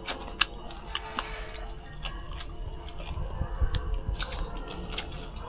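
People eating roast duck: chewing with scattered light clicks and crunches.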